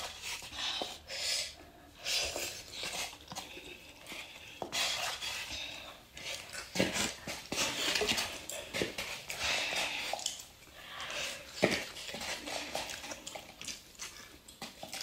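Slurping and chewing instant cup noodles, with chopsticks clicking and scraping against the cup; a few sharper clicks, the loudest about two-thirds of the way through.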